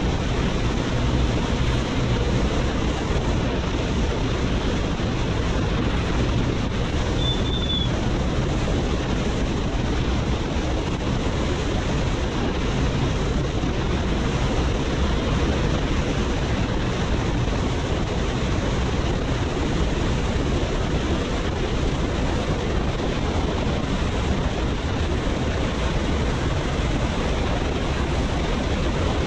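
Heavy wind rushing over the microphone of a motorcycle at freeway speed, a steady roar, with the low drone of the BMW R nineT's boxer-twin engine underneath. A brief high chirp sounds once about seven seconds in.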